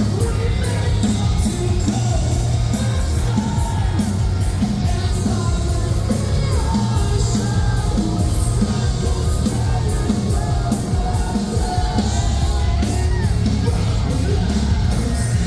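Metalcore band playing live at full volume: heavy bass and guitars under a steady pounding of drums, with yelled and sung lead vocals over the top.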